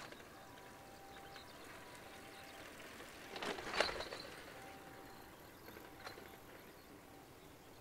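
Faint outdoor background with faint steady tones coming and going, and one brief noisy burst about three and a half seconds in.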